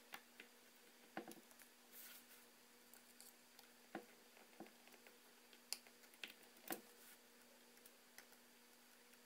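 Faint, scattered clicks and light taps of a small screwdriver driving the tiny screws that hold an iPhone 4S screen to its metal chassis, irregularly spaced, over a low steady hum.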